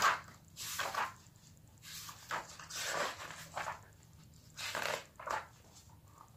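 Paper pages of a hardcover picture book rustling as it is opened and leafed to the first page: several short rustles over a few seconds.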